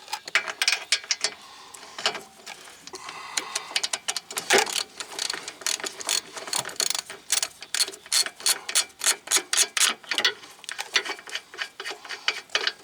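Hand ratchet clicking in quick runs of strokes as a bolt is backed out, with short pauses between the runs.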